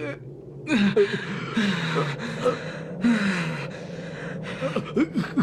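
Voice acting of a man gasping, panting hard and letting out strained groans, the pained breathing of a battered fighter.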